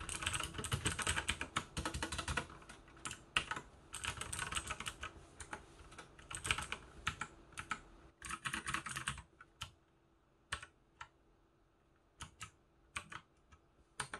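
Typing on a mechanical keyboard with Outemu blue clicky switches, each keystroke a sharp click. Fast bursts of typing run for the first nine seconds or so, then it thins to scattered single key presses.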